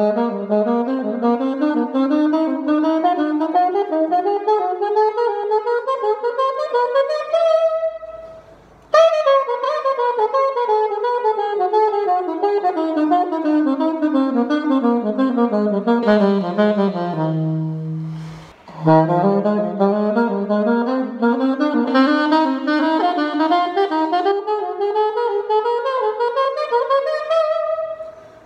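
Alto saxophone playing a major-scale pattern in four-note stepwise groups (do-re-mi-fa, re-mi-fa-so, and so on), climbing about two octaves. After a brief break it comes back down in the same kind of groups to a held low note, then climbs again.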